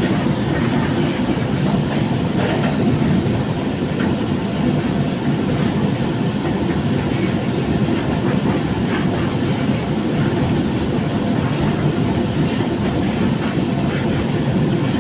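Train running on the rails: a steady, heavy rumble with a few faint clicks.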